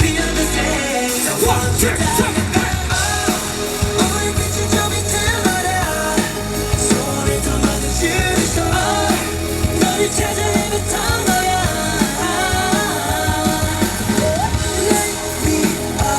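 K-pop boy-group song played loud over a concert sound system, with male sung vocals over a steady bass-heavy beat.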